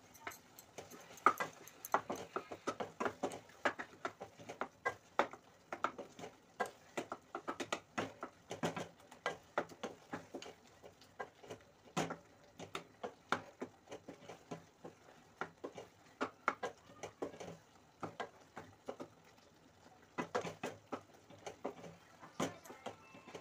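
Wooden spatula stirring thick tomato chutney in a stainless steel kadai, with irregular knocks and scrapes against the pan several times a second and a few short pauses.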